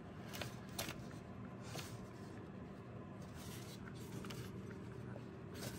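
Faint handling noise of a gloved hand fitting a MAP sensor into the engine's intake manifold: light rustling with a few small clicks.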